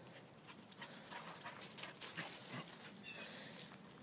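A dog running, its paws making a quick, irregular patter of rustling footfalls across grass and dry leaves.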